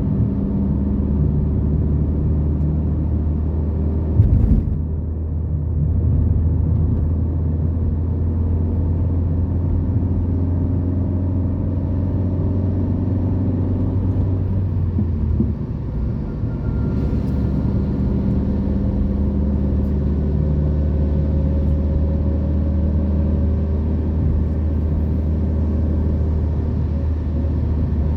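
A car driving, with its engine and road rumble running steadily throughout. A short bump comes about four seconds in, and the engine note changes about fifteen seconds in.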